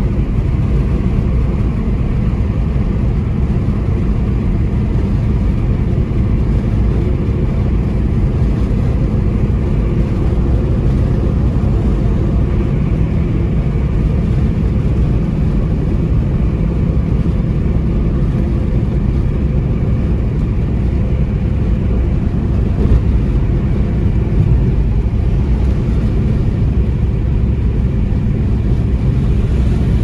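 Steady road noise inside a car's cabin while cruising on a highway: an even low drone of tyres and engine with no breaks.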